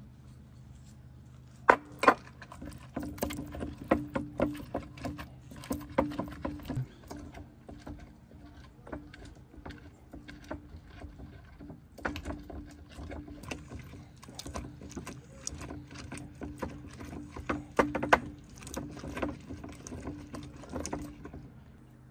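Utensils clicking and knocking in a quick, irregular run, opening with two sharp knocks, over a steady low hum.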